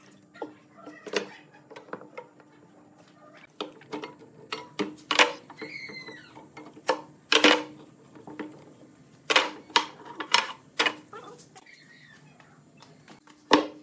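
Steel F-style bar clamps being loosened and taken off a wooden workpiece: scattered clanks and knocks of metal clamp bars and jaws, with a few short squeaks near the middle.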